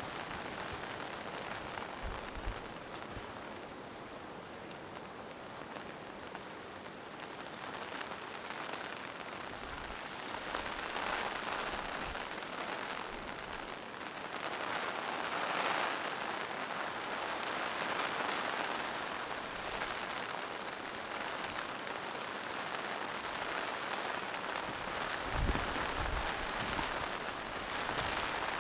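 Steady rain falling on leaves and mossy rocks, a dense even patter that grows a little heavier about halfway through, with a few soft low thuds of drops near the end.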